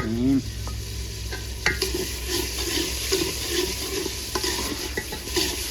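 Onion-tomato masala sizzling as it fries in oil with freshly added ginger-garlic paste, stirred with a spoon that clicks now and then against the pot.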